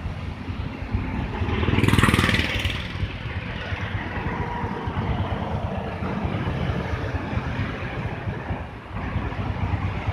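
Road traffic going by: car and motorcycle engines with tyre noise on the road. One vehicle passes close and loud about two seconds in.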